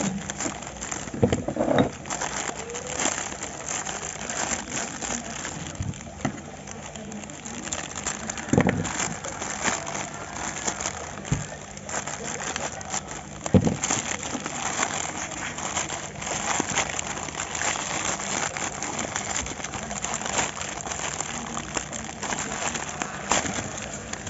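Handling noise from unboxing a tablet battery: plastic packaging crackling and clicking, with a few louder thumps near the start, about a third of the way in, and just past the middle.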